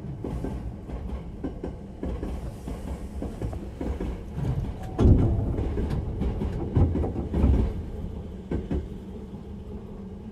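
Hankyu 8000 series electric train heard from inside the car: a steady low rumble with wheels knocking over track joints, and a cluster of heavier knocks from about five to eight seconds in.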